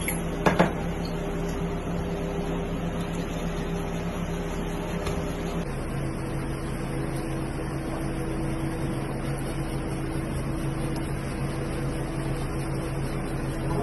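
A steady mechanical hum holding a low tone that steps down in pitch about six seconds in, with two sharp knocks about half a second in.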